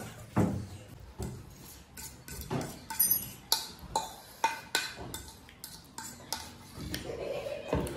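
Metal spoon clinking and scraping against a ceramic bowl as the last of the food is scooped out, with repeated short clinks about two a second.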